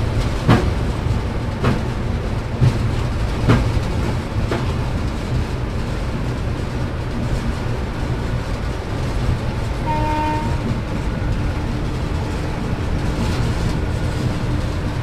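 Cab running noise of a WAP4 electric locomotive at speed: a steady low rumble with sharp knocks roughly once a second in the first few seconds, the clickety-clack of wheels over rail joints. About ten seconds in, a short pitched tone sounds, followed by a faint steady hum.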